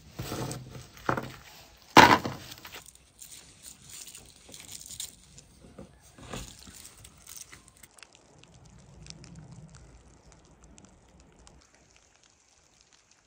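Several sharp knocks, the loudest about two seconds in and another about six seconds in, followed by quieter clicks and handling sounds.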